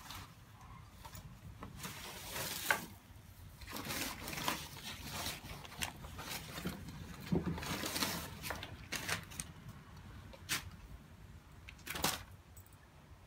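A large dog nosing and pawing through newspaper inside a plastic pet carrier: irregular rustling and crinkling of the paper in several louder spells, with a few sharp clicks.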